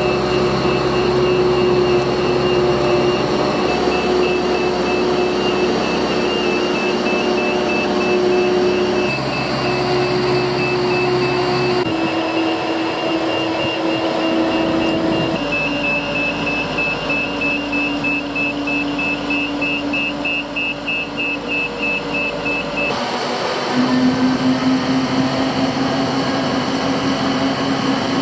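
Boat travel lift's engine running steadily while it carries a yacht, with a rapid high-pitched pulsing warning beep that stops near the end. The engine hum changes pitch abruptly several times.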